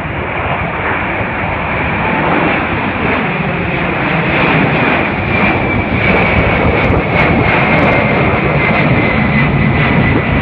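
Boeing 747 Dreamlifter's four turbofan engines climbing out after takeoff: a loud jet roar that swells over the first few seconds as the aircraft comes overhead, with a high whine that slowly drops in pitch.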